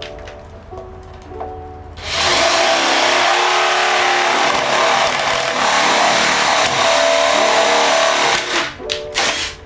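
An electric woodworking power tool starts about two seconds in, runs loudly and steadily for about six seconds, then stops. Background music plays under it.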